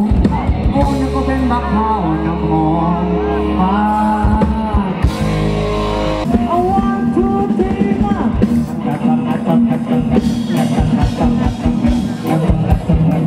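Live rock band: a man singing over electric guitar, bass and drum kit.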